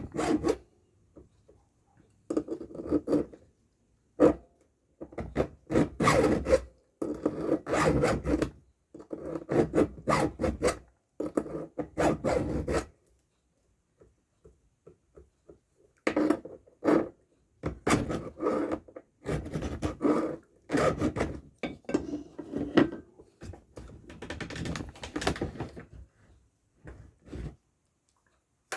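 A file rasping across the cutting teeth of a chainsaw chain, in short groups of strokes, tooth by tooth, with pauses between groups and a longer pause about halfway through.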